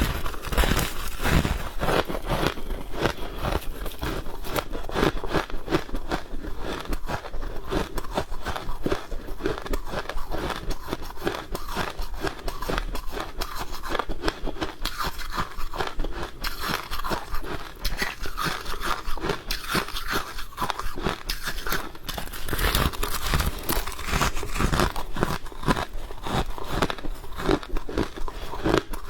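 Freezer frost crunching up close: a dense, unbroken run of crisp crackling crunches, a little louder and busier for a few seconds in the second half.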